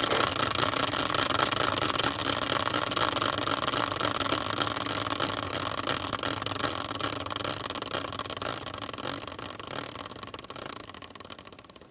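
A hand-spun team randomizer wheel, a caster wheel on a metal bracket, whirring on its axle. The steady whir slowly fades as the wheel loses speed and dies away near the end as it comes to rest.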